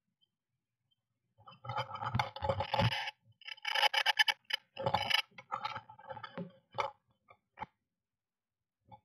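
Blue tits scuffling inside a wooden nest box as the male comes in to feed the sitting female: a burst of scratchy scraping, clicking and wing-fluttering against the nest lining and walls that lasts about six seconds, then a few single taps as he leaves through the entrance hole.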